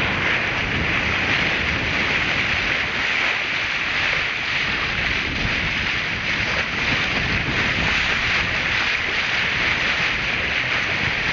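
Steady rush of water along a sailing yacht's hull as it cuts through the sea, the bow wave hissing, mixed with wind on the microphone.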